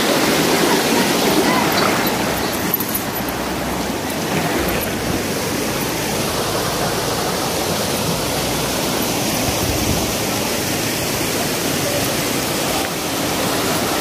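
Steady rushing of a rocky mountain stream and waterfall, water pouring and splashing over stones.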